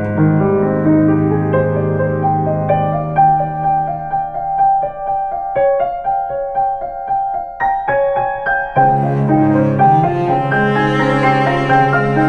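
Instrumental background music: piano notes over held low string notes. The low strings fall away a few seconds in, leaving the piano alone, and come back in near the end.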